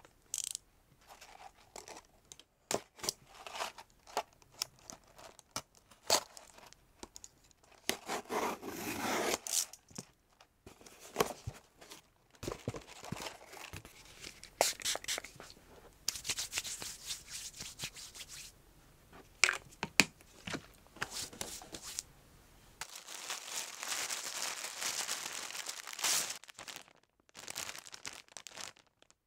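Parcels being unboxed by hand: packaging tearing, rustling and crinkling in stretches of a few seconds, with scattered short taps and clicks.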